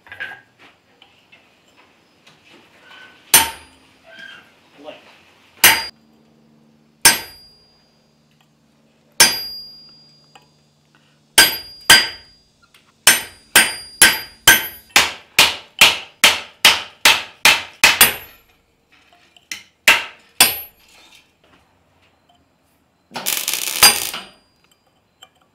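Hand hammer striking a steel chisel to cut battle-damage nicks into a forged steel hammerhead on an anvil. Sharp ringing metal blows come a few seconds apart at first, then in a quick run of about three a second, then a few more spaced blows, with a short rough burst of noise near the end.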